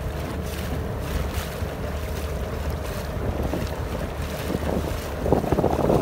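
Wind buffeting the microphone over choppy water, with the rush of water and waves around a small boat. The noise grows louder and rougher about five seconds in.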